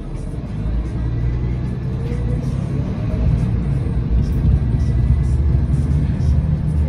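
Nova Bus LFS city bus heard from inside the cabin: a low engine and drivetrain drone that grows louder as the bus accelerates, with a faint rising whine about two seconds in.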